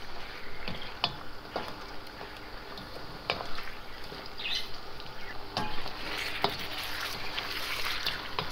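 Lamb pieces sizzling as they fry in hot ghee in a wok, with a spatula stirring them and scraping and clacking against the pan a few times.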